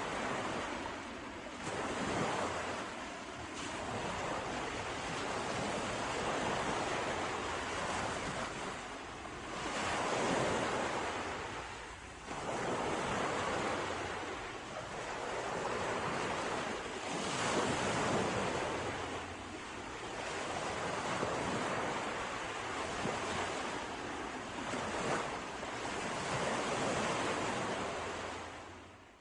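Sea waves breaking and washing on the shore, a continuous surging wash that swells and eases every few seconds, with some wind on the microphone.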